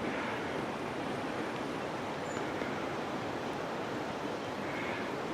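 Steady rushing outdoor noise with no distinct events, like wind or running water.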